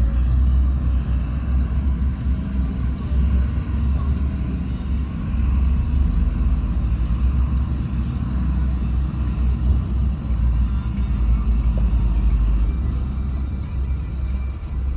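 Heavy diesel construction machinery running steadily, a continuous low rumble.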